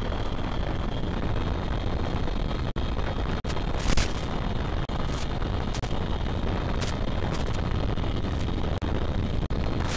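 Loud, steady rumbling noise from an FPV aircraft's analog video-link audio, with a few sharp crackles, the largest about four seconds in, and several brief dropouts, typical of a weak analog radio signal.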